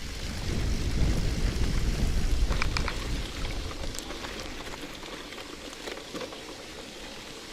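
Bicycle being ridden over a wet dirt track: a steady hiss and crackle of tyres on the wet ground, with wind rumbling on the microphone for the first few seconds and a few short clicks from the bike midway.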